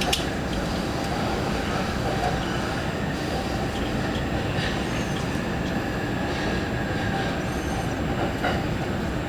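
Electric commuter train running through a station, heard from inside the car: a steady rumble of wheels on rail, with a few faint high squeals.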